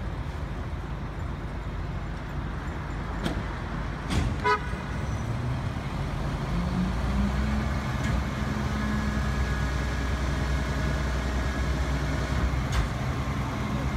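Garbage truck engine speeding up about six seconds in and then holding a steady, higher-pitched run, over city street noise. A couple of sharp knocks and a brief beep come about four seconds in.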